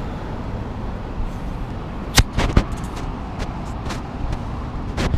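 Steady road-traffic rumble, with a few sharp clicks about two seconds in and again near the end.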